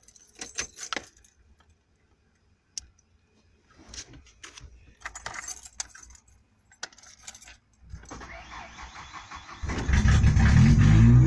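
Car keys jangle and click in the ignition. Near the end the 1991 Ford Ranger's engine catches and starts, its pitch rising as it revs: the truck starting again once the fuel-pump wiring of its added kill switch is working.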